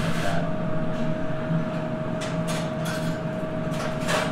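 Several short scrapes of a utensil against a dish or pot, over a steady high-pitched hum of kitchen equipment.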